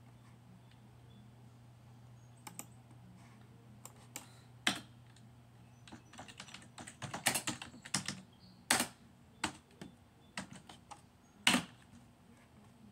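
Typing on a curved ergonomic computer keyboard. Scattered keystrokes at first, then quicker runs of clacks from about six seconds in, with a few sharper, louder key hits.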